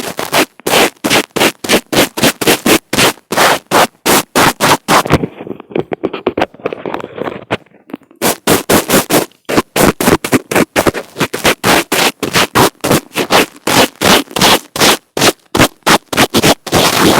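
Fingers rubbing and scratching directly on an earphone microphone in a fast run of scratchy strokes, about three or four a second. The strokes soften into a continuous rubbing for a few seconds in the middle, and near the end they turn into a steady, loud rubbing.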